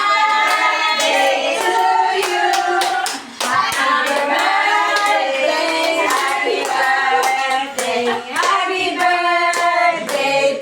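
A group of people singing together while clapping their hands in rhythm, the claps sharp and frequent over the singing.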